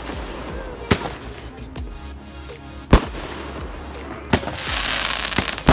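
Fireworks bursting in the air: sharp single bangs about two seconds apart. Near the end a hissing crackle of crackling stars leads into another bang.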